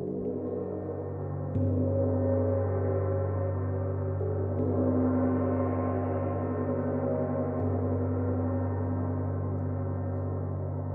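Gong ringing continuously, a dense wash of many overlapping sustained tones, struck again about a second and a half in so that the sound swells louder and rings on.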